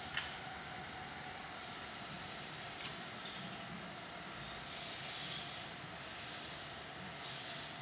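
A standing steam locomotive hissing in repeated swelling bursts, its steam venting off while the engine sits. A single sharp click just after the start.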